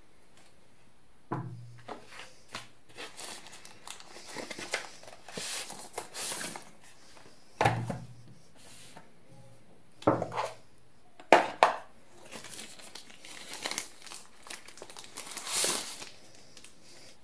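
Crinkling and rustling of the white protective wrapping as a power bank is handled and slid out of it, in irregular bouts. Several light knocks come from things being set down or handled on the table.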